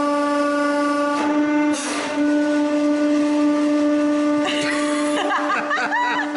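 Hydraulic press running with a steady hum. A short hiss about a second in as the ram reverses and lifts off the flattened steel alarm clock. Wavering, squeaky gliding sounds come over the hum for the last couple of seconds.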